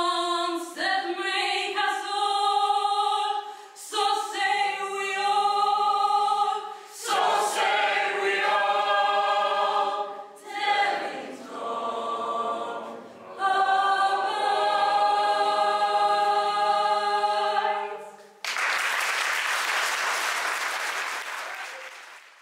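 Mixed choir singing a hymn-like school anthem a cappella in sustained chords. The singing ends about three-quarters of the way through and the audience breaks into applause, which fades out near the end.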